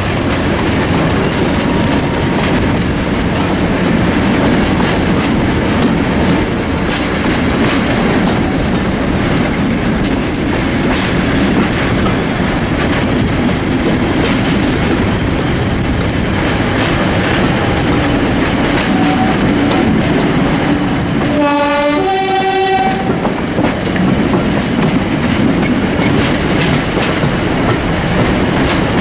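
Class 50 diesel locomotive 50031 running with its train: steady engine and rail noise. About two-thirds of the way through its two-tone horn sounds once briefly, a low note followed by a higher note.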